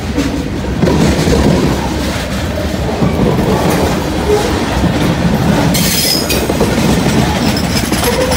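Freight cars of a CSX mixed freight train rolling past close by: a loud, steady rumble of steel wheels on rail. About six seconds in comes a brief high squeal of wheel against rail.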